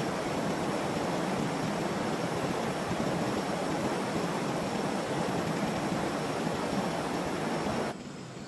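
Steady rushing of water, an even dense hiss that drops abruptly in level near the end.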